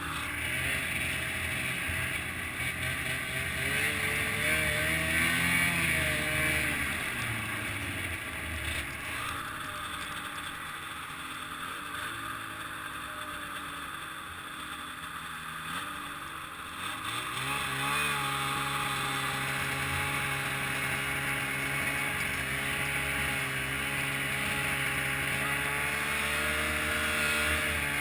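Snowmobile engine running as the machine travels along a snowy trail. Its pitch rises around four to six seconds in and then drops back, so that a hiss dominates for a while. Near the middle it picks up again and holds a steady pitch.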